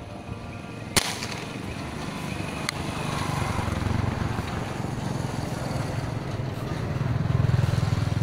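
A rubber-powered spear gun firing: one sharp snap about a second in, with a lighter click shortly after. A low rumble then builds and grows louder near the end.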